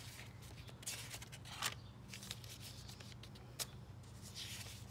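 Thin Tomoe River paper pages of a planner being turned and handled: soft rustles with a few light ticks and brushes, over a faint steady low hum.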